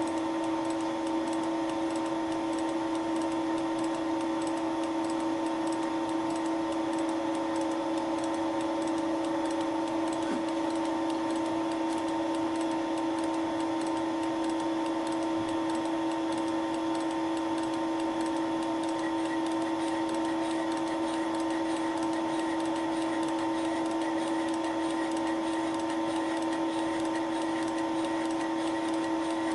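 Thiel Duplex 158 milling machine running steadily, turning a Wohlhaupter UPA5 facing and boring head through a final facing pass on a plastic bearing seat. The spindle drive gives a steady hum with one strong tone and higher tones above it, under a faint regular ticking.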